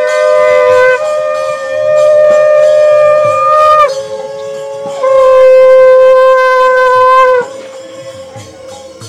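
Conch shells (shankha) blown in long, loud held blasts, each sagging in pitch as it ends: one breaks off about a second in, the next about four seconds in, a third about seven and a half seconds in, and a fainter held note carries on after.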